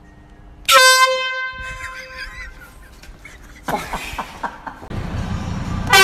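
A handheld air horn blasts once, a loud steady blare lasting about a second, starting just under a second in. A short wavering cry and some knocks and commotion follow.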